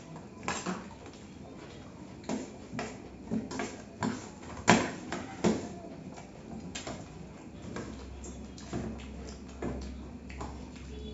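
Steel spoons clinking and scraping against stainless steel plates while two people eat ghugni with puffed rice, in irregular taps a few times a second, with one sharper clink near the middle.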